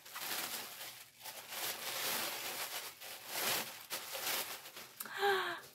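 Paper packing rustling and crinkling in irregular bursts as a gift is unwrapped by hand, with a short murmur of a woman's voice near the end.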